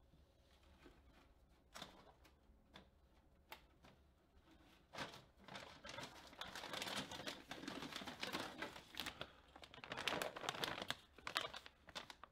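A hand rummaging through a cluttered shelf of tools and supplies: rustling, crinkling plastic and small items knocking and clicking against each other. The rummaging is sparse at first and grows busier and louder from about five seconds in.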